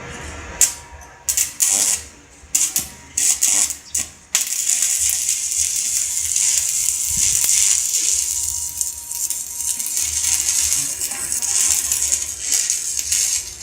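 Stick (electrode) arc welding: the arc is struck with a few short, separate crackles, then catches and burns with a steady, dense crackling sizzle from about four seconds in.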